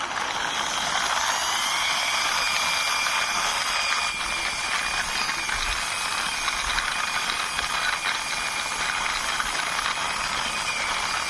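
Diecast toy car's wheels rolling steadily as it is pushed along by hand: a continuous grinding hiss with a faint high whine.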